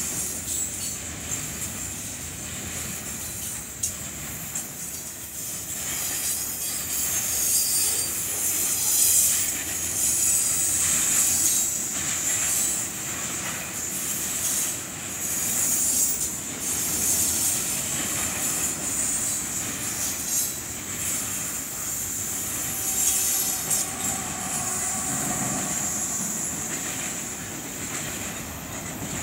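Freight train of covered hoppers and tank cars rolling past: steady wheel and rail noise with a high, continuous squeal from the wheels, loudest about a third of the way in.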